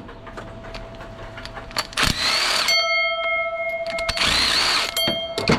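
Cordless power tool, a drill or driver, run in two short whirring bursts, about two seconds in and again past four seconds, while working fasteners on the car's water pump and radiator. A steady pitched tone sounds between the bursts, with a few clicks.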